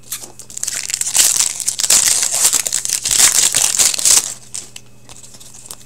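Foil wrapper of a hockey card pack crinkling as it is opened and crumpled by hand, a dense crackle starting about half a second in and stopping about four seconds in.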